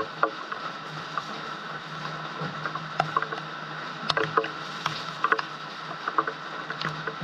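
Water splashing and dripping as a man bathes with a plastic dipper, pouring scoops of water over his head onto a concrete water tank, with scattered drips and splashes and a heavier pour about four seconds in.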